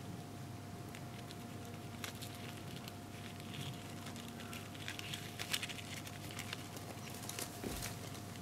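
Male Japanese rhinoceros beetle (Trypoxylus dichotomus) stridulating with his abdomen during mating: weak, squeaky chirping and fine clicks in irregular little clusters, busiest in the middle.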